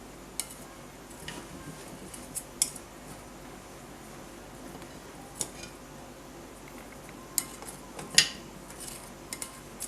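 Light clicks and knocks of kitchen utensils against a bowl, a second or more apart, as ginger and garlic are put in to be ground with spices.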